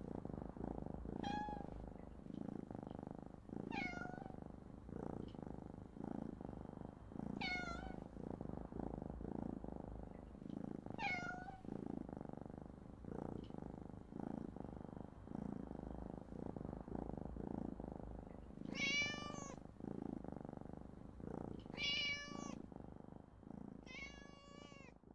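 Kittens mewing: seven short, high-pitched mews, each falling in pitch, the last three louder and higher. Under them runs a steady, pulsing low purr.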